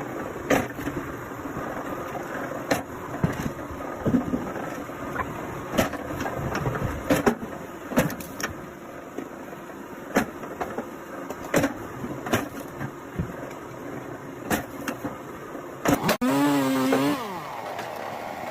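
Engine-driven wood-processing machinery running steadily under repeated sharp knocks and cracks as firewood is worked. About sixteen seconds in, the sound changes abruptly to a louder whine that dips and rises in pitch.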